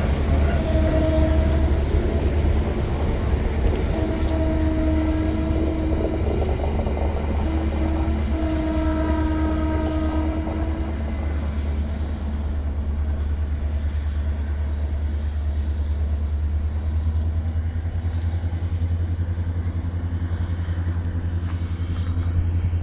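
Electric locomotive's horn sounding three times as a greeting: a short note, then two longer ones of about two seconds each, over a steady low rumble.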